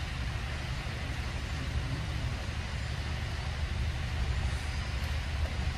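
Steady low outdoor rumble with an even hiss above it.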